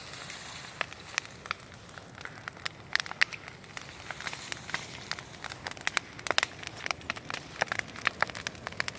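Large bonfire of rubbish burning, crackling with sharp irregular pops over a steady hiss.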